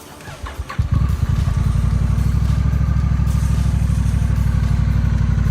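Honda Rebel parallel-twin motorcycle engine starting through a Swica aftermarket exhaust. After a brief crank it catches about a second in, then idles steadily with an even, deep pulse.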